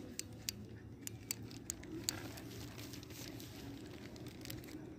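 Dog eating dry kibble from a plate, crunching: a quick run of crisp clicks in the first two seconds, then fainter, sparser chewing.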